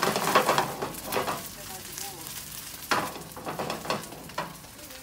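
Seafood pajeon sizzling in hot oil in a frying pan, with loud hissing for the first second or so and again from about three seconds in.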